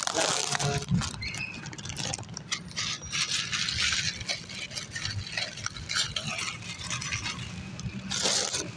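Plastic packaging rustling and crinkling as the parts are handled, with many small irregular clicks and a louder rustle near the end.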